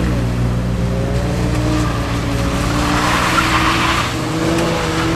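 Car engine revving up and down while a sedan drifts on wet pavement, with a brief hiss of tyres skidding about three seconds in.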